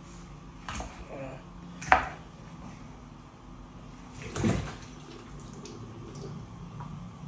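Kitchen knife knocking on a wooden chopping board while cutting meat: a light knock, then a sharp loud one about two seconds in. A short splash in the steel sink follows about four and a half seconds in, over a steady low hum.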